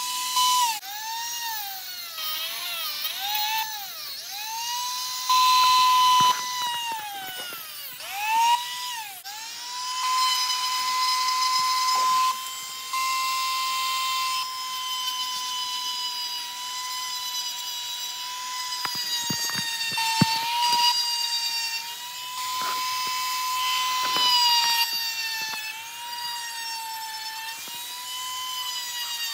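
Handheld rotary tool running at high speed with a steady whine, its pitch dipping again and again as the bit is pressed into a small toy car and rising back as it is eased off. The dips are frequent in the first ten seconds, then the speed holds steadier with smaller dips, and there are a few short clicks about two-thirds of the way through.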